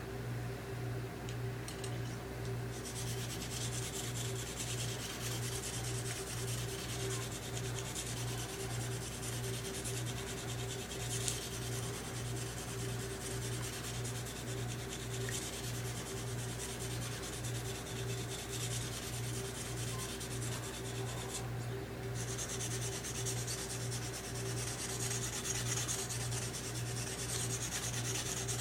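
Steel knife blade of a Smith & Wesson Black Ops recurve knife being stroked steadily across an oiled sharpening stone, a continuous scraping that starts about three seconds in and pauses briefly about three quarters of the way through. A steady low hum runs underneath.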